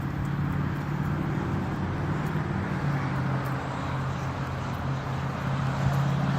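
Steady low mechanical hum over a wash of outdoor noise, most like a motor vehicle engine running, its pitch shifting slightly a few times.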